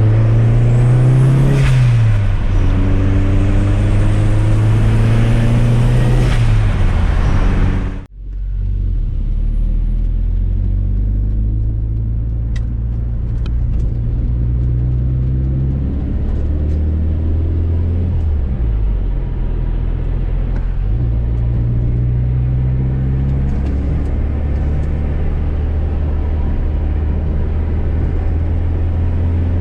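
Fiat Coupe 16V Turbo's turbocharged four-cylinder engine accelerating hard through the gears, its pitch climbing and then dropping at each shift. About eight seconds in, the sound cuts out for a moment and comes back quieter, the engine still pulling through more gear changes.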